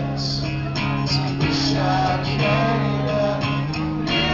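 Live rock ballad played on stage: an electric guitar rings out sustained chords, with singing over it.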